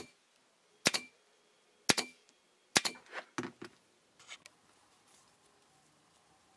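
Staple gun firing staples, four sharp shots about a second apart, followed by a few lighter clicks.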